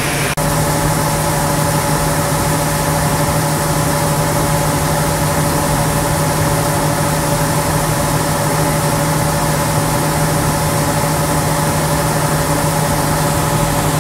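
Grain store machinery running steadily: a loud, constant mechanical hum with a steady drone and fixed tones that neither rise nor fall.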